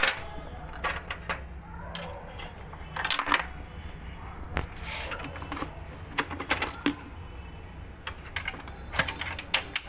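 Hard plastic and sheet-metal parts of a photocopier's finisher mounting clicking and knocking irregularly as a plastic lock piece is handled and fitted into the frame by hand, over a steady low hum.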